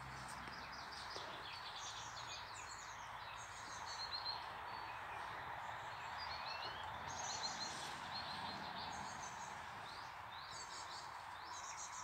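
Songbirds chirping in short, quick, high phrases again and again, over a steady background hiss.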